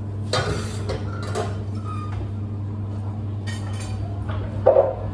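Clinks and clatters of metal jugs and crockery handled at a café espresso counter: a few short knocks through the stretch, the loudest near the end, over a steady low machine hum.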